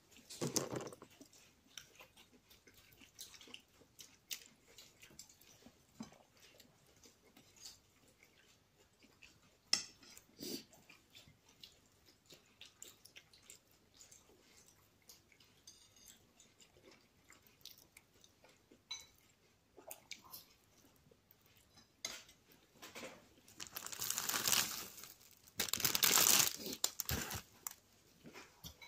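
Close-up soft chewing and small mouth clicks of a person eating an apple beignet, a soft fried pastry. Near the end there are a few seconds of louder rustling, the loudest sound here.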